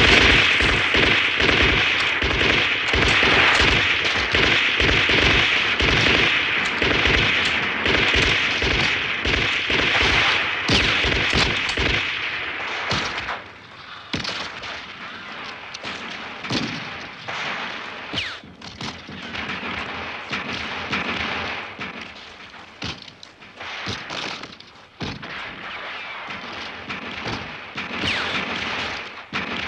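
Heavy gunfire from many rifles: dense, rapid, overlapping shots for the first twelve seconds or so, then thinner, scattered shots.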